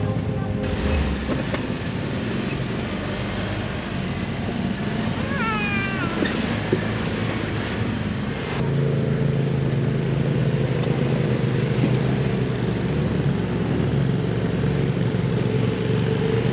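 Side-by-side UTV engine running as the vehicle crawls over a rough trail, with a brief run of high squeaks about five seconds in. From about eight and a half seconds on the engine is louder and steadier.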